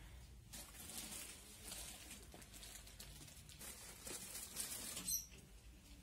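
Faint rustling and light scuffs over quiet shop room tone, a little louder about four to five seconds in.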